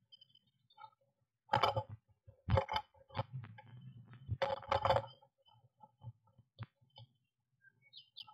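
A blue tit moving inside a wooden nest box: three short bursts of scrabbling and fluttering against the wood in the first five seconds as it leaves the box, then faint ticks and a couple of thin, high chirps near the end.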